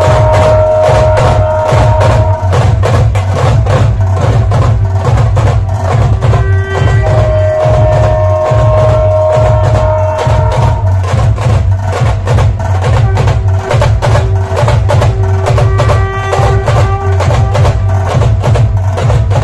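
Dhol-tasha band playing a fast, dense drumming rhythm: deep dhol beats under rapid sharp tasha strokes, with long held melodic notes sounding over the drums at times.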